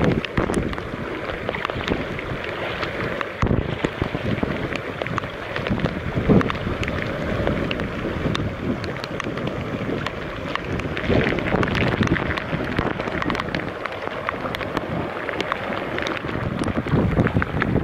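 Heavy rain falling steadily, with gusts of wind rumbling on the microphone.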